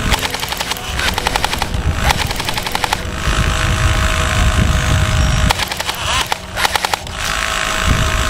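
Airsoft electric gun (M4/M16-style AEG) firing rapid full-auto bursts of BBs, several strings of shots with short breaks between them as the electric high-capacity magazine is wound to feed more BBs.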